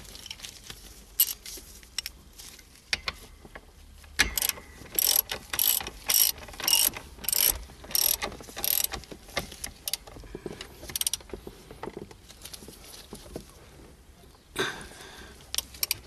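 Hand socket ratchet clicking as it drives in the mounting bolt of a car seatbelt buckle tensioner. In the middle comes a regular run of about eight quick ratchet strokes, a little under two a second, with more scattered clicks after.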